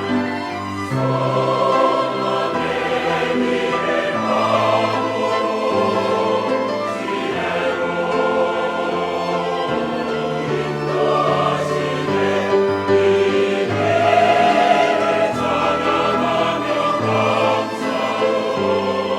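Church choir singing a sacred anthem in held chords, the harmony and bass moving every second or two.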